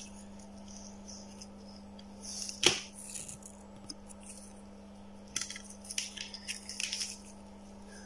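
Handling noise of a circuit board and oscilloscope probe clips in gloved hands: one sharp click about two and a half seconds in, then a cluster of small clicks and rustles near the end, over a steady hum.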